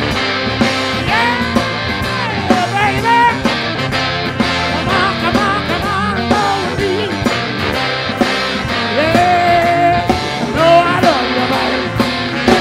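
Live blues band playing: electric guitar and drum kit under a lead line that bends and wavers in pitch.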